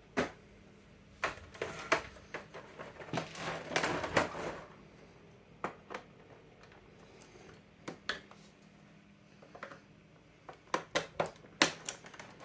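Plastic telephone housing being worked loose from its snap clips by hand: scattered clicks and knocks of hard plastic, a scraping rustle about three to four seconds in, and a quick run of clicks near the end.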